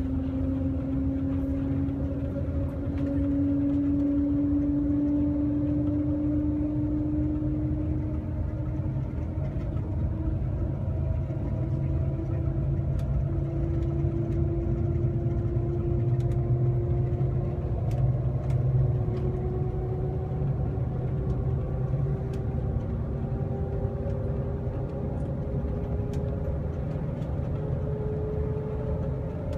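Cabin noise of the Shanghai Maglev (Transrapid) train accelerating: a steady low rumble with a whine that rises slowly and evenly in pitch as the train speeds up from about 80 to 130 km/h.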